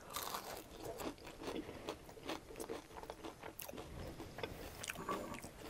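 Close-up crunching and chewing of a crispy fried spring roll: a bite, then irregular crackling crunches as it is chewed.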